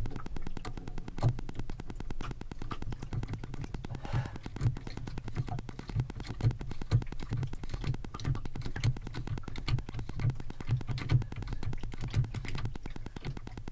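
Irregular small clicks and knocks of metal parts being handled as a washer and nut are fitted onto the propeller shaft coupling, over a low steady hum.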